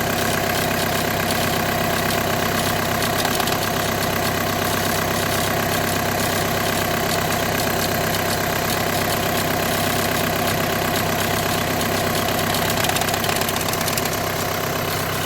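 Volkswagen car engine idling steadily.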